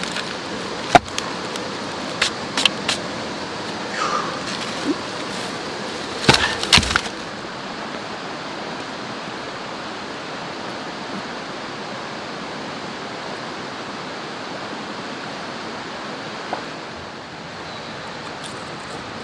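Steady rush of river water running over rocks. In the first seven seconds come several sharp wooden knocks as sawn pine log rounds are handled and knocked together, the loudest a cluster about six to seven seconds in.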